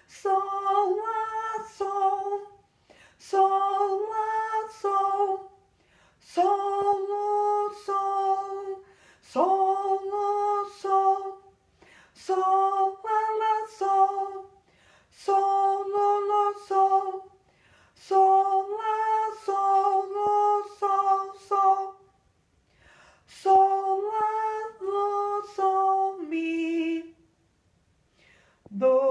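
A woman singing an unaccompanied solfège exercise on syllables like "do ti do", in about ten short phrases of a few notes each. Each phrase steps down a note and back, with brief pauses between phrases; the last phrase ends lower.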